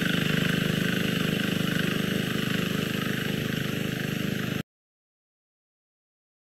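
Small engine of a self-propelled boom crop sprayer running steadily with a fast, even beat while it sprays; the sound stops abruptly about four and a half seconds in.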